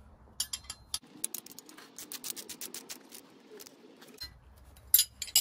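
A socket ratchet with a 3/4-inch socket clicks rapidly for about three seconds as it runs a 1/2-inch bolt down tight on steel brackets, while a wrench holds the nut. A few sharp metal clinks from the tools near the end are the loudest sounds.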